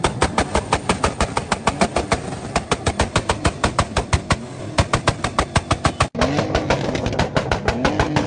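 A car engine making a rapid, even stutter of about six sharp pulses a second, with a brief break about six seconds in.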